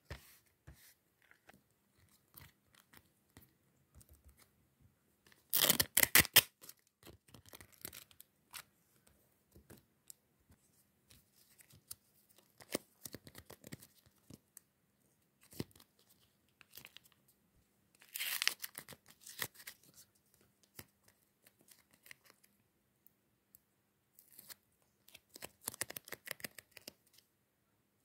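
Paper being torn and handled: three louder spells of quick tearing and crinkling strokes, with light rustles and taps in between.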